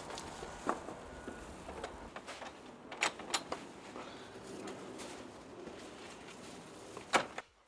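A man climbing over a wooden fence gate: several sharp knocks and bumps against the boards over a steady background hiss, the loudest knock near the end.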